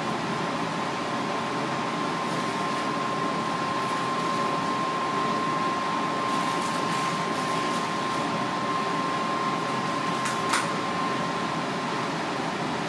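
Steady whirring of ventilation machinery, like a fan or air-conditioning unit, with a thin steady whine over it that stops about eleven seconds in. A single sharp click comes shortly before the whine stops.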